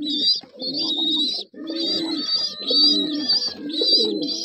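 Indian fantail pigeons cooing, with a fast, even run of high chirps going on over the coos.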